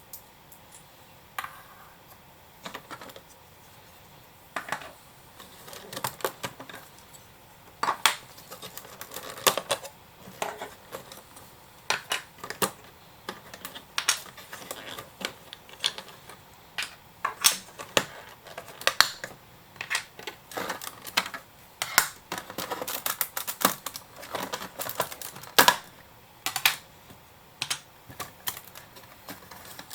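Lego bricks being pulled apart and set down: irregular sharp plastic clicks and clacks, sparse at first and then coming quickly, several a second.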